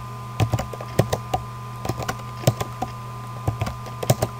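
Computer keyboard keys clicking irregularly, a dozen or so sharp taps as the Ctrl+V paste shortcut is pressed again and again, over a steady low hum.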